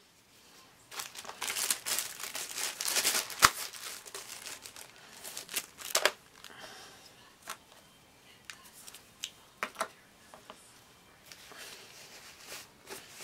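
Baby wipe being crumpled and rustled in the hand, with a few sharp clicks of small things set down on the tabletop, the loudest about three and a half seconds in.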